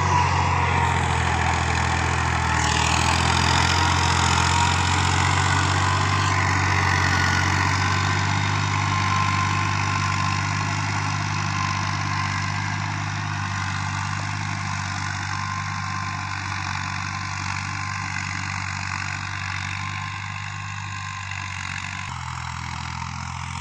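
Al-Ghazi tractor's diesel engine running steadily under load as it drags a tine cultivator through dry soil, fading gradually as the tractor pulls away.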